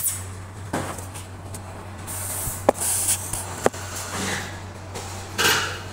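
Handling noise on a workbench: a few sharp clicks and light knocks and short rustling hisses over a steady low hum.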